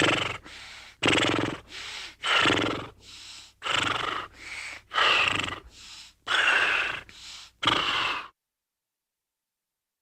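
Animal call repeated in a steady cycle, each time a loud part followed by a softer one, roughly once a second, cutting off abruptly about eight seconds in.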